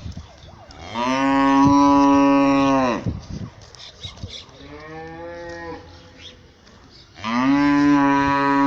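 Dairy cattle mooing: three long calls, the middle one fainter than the other two.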